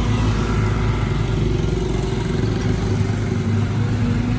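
Caterpillar 313GC excavator's diesel engine running steadily with a low, even pitch.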